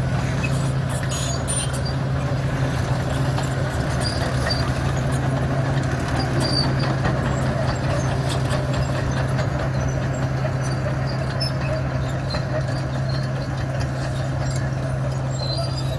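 Komatsu D61 crawler bulldozer's diesel engine running steadily with a constant low hum, while breaking up a bituminous road surface. Scattered sharp clicks and crackles sound over the engine.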